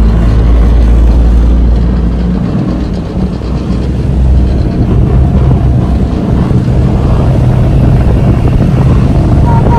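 Outboard motor of a small boat running steadily underway, a deep hum that drops briefly in level about three seconds in.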